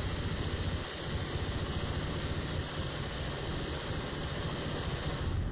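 M134 Minigun (7.62×51 mm, six rotating barrels) firing a sustained burst, its shots merging into one unbroken stream of sound, with a brief lull about a second in, stopping suddenly near the end.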